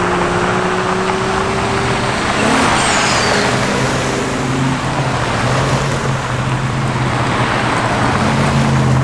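Vehicle driving along at speed: a steady engine hum under heavy tyre and wind noise.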